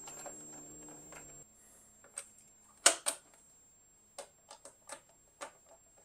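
Screwdriver undoing the screws of a Victron Lynx Power In's plastic cover: scattered sharp clicks and ticks of the driver tip and the plastic housing, the loudest pair about three seconds in.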